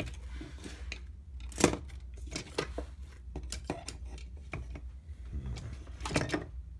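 A metal adjustable wrench being handled and worked: scattered light clicks and knocks of metal parts, with one sharper knock about a second and a half in, over a low steady hum.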